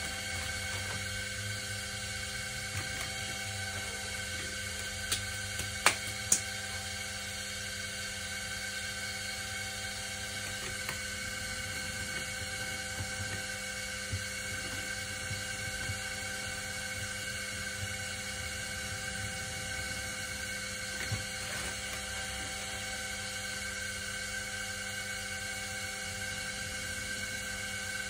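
Electric potter's wheel motor running at a steady speed, a whine made of several steady tones. A few sharp clicks come about five to six seconds in, and one more near the end.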